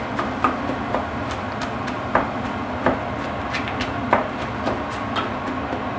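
Prawn heads and shells sizzling in hot oil in a stainless steel pot while a wooden spoon crushes them, knocking irregularly against the pot, to toast them and draw out their juices for the stock.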